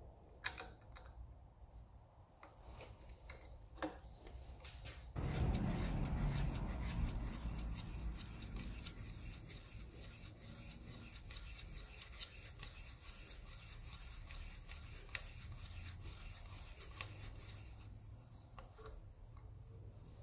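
Hand-cranked manual case trimmer cutting the neck of a .308 Winchester brass case: a steady metal-on-brass scraping that starts about five seconds in, loudest at first, and dies away near the end. A few clicks and light knocks come first as the case is seated in the shell holder.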